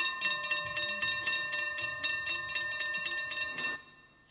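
Railway level-crossing warning bell ringing rapidly, about four to five strikes a second, with a steady ring, then cutting off abruptly near the end.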